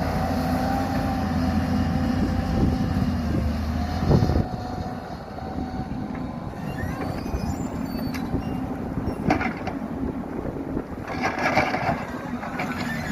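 Hyundai R220 hydraulic excavator's diesel engine running steadily under load. About four seconds in it ends with a knock and drops to a quieter, lower run, with a few clicks and a short rattling burst near the end.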